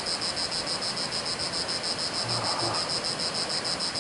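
Cicadas singing: a high-pitched buzz that pulses evenly several times a second, without a break. It is the males' call to attract a mate.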